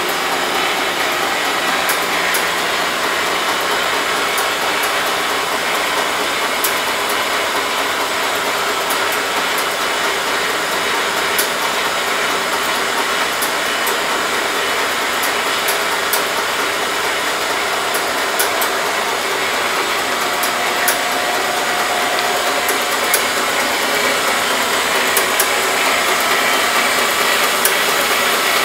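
Yarn winding and transfer machine running, its heads spinning yarn packages: a steady whirring hiss with faint sharp ticks at irregular moments.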